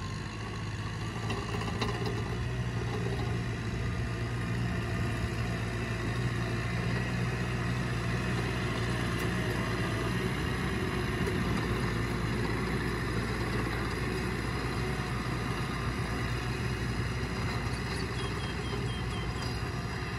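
Tractor engine running steadily as it pulls a disc plough through dry soil.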